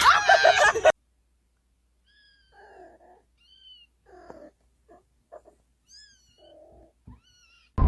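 A cat giving several soft, short, high-pitched meows or chirps spread over a few seconds, each one bending in pitch. A loud sound fills the first second before them.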